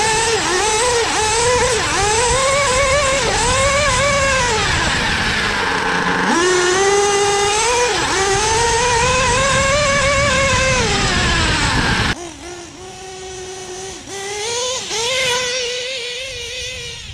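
Modified LRP .32X nitro engine of a 1/8 Kyosho Inferno ST truggy, running through a Novarossi tuned pipe. The engine revs up and down as the throttle is worked, heard from the onboard camera over wind noise. Just before six seconds in it drops low off throttle and winds back up, and about twelve seconds in it becomes suddenly fainter, heard from a distance. The engine is still running cool and rich while warming up.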